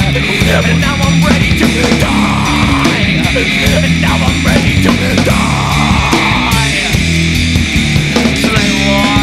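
Loud rock song: electric guitars over bass and drums, held at a steady driving level.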